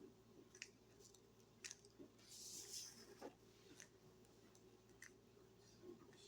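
Rubik's cube layers being turned through an OLL algorithm: a string of faint, irregular clicks, with a softer rustle about two and a half seconds in.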